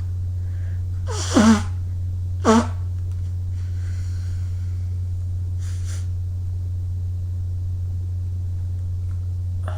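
A person sneezing twice, about a second apart, each sneeze a sharp burst of air with a voiced cry that falls in pitch, followed by quieter breaths. A steady low hum runs underneath.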